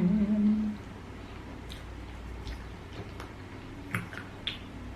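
A short, low burp of about a second, right at the start, followed by faint clicks of chewing and mouth noises.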